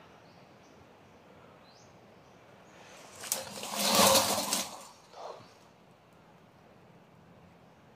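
Leaves and stems rustling and crackling in dense undergrowth as someone pushes into the plants and handles a plastic case, loud for about two seconds from around three seconds in, with a smaller rustle just after.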